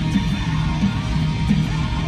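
Background music with strummed guitar and a bass line at a steady level.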